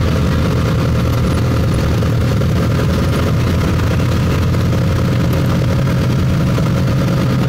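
Engine of a moving road vehicle running steadily, heard from inside the vehicle: a constant low drone mixed with road noise.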